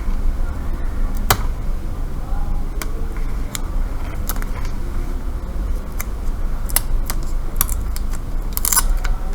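Scattered light clicks and taps of a small T5 Torx screwdriver and metal parts as the SSD is unscrewed from a MacBook Pro, over a steady low hum.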